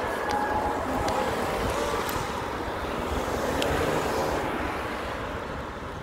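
Riding noise from a bicycle on a city street: tyres rolling on rough, cracked asphalt and wind buffeting the microphone, with a few light clicks and rattles and street traffic in the background.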